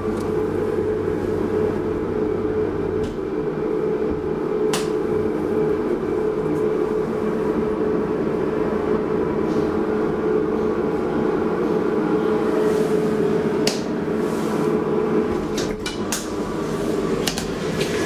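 DEVE hydraulic elevator car in motion, heard from inside the cab: a steady machine hum with a clear steady tone. It fades about two seconds before the end, with a few sharp clicks as the car stops and the door is unlatched.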